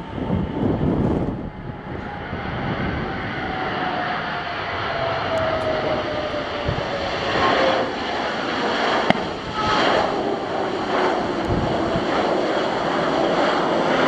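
Jet engines of an Airbus A320 airliner running loud as it rolls out along the runway just after touchdown, with a whine that falls steadily in pitch over the first several seconds.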